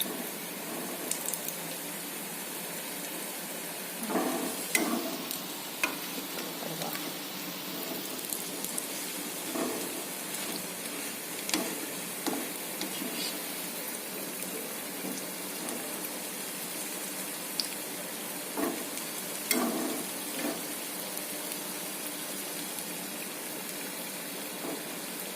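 Banana-flower fritters (kadali phula bara) frying in hot oil: a steady sizzle, with a few brief knocks and clatters now and then.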